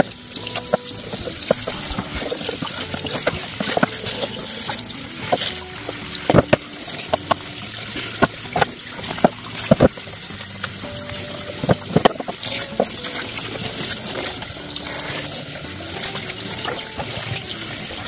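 Kitchen tap running a steady stream of water into the sink over a catfish being cleaned, an even splashing hiss. Scattered sharp knocks come from the fish and tools being handled in the sink.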